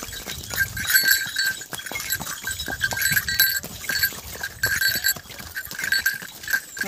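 A horse being ridden at a walk, with small bells jingling in irregular bursts over the soft knocks of its steps.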